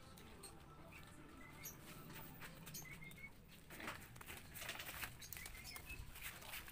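Long green leaves rustling and crackling as they are handled and woven on the ground, the crackles getting busier and louder about halfway through. Birds chirp faintly now and then.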